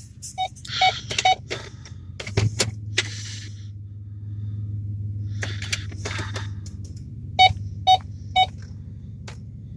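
Three short electronic chime beeps from the pickup's cabin, about half a second apart, then a steady low hum for several seconds with a few clicks, and three more beeps near the end.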